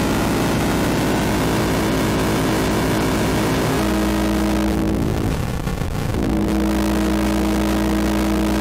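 Home Bake Instruments HARMONICS Eurorack synthesizer playing a sustained drone of three layered wavetable oscillators, its tones shifting as its knobs are turned. About four seconds in the pitches change, and a little later the sound sweeps and briefly thins before settling onto steady held tones.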